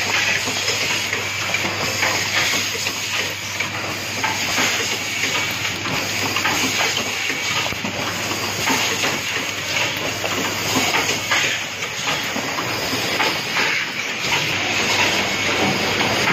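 Automatic switch assembly machine and its conveyor running: a steady mechanical hiss with a low hum and a dense rattle of small clicks.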